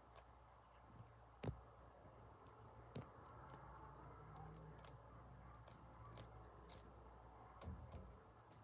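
Near silence: faint background with scattered soft, high clicks and a low steady hum.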